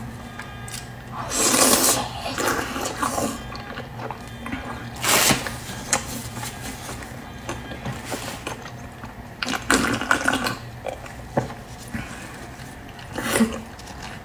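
Close-miked eating sounds: several loud wet slurps a few seconds apart, with quieter chewing and mouth sounds between them.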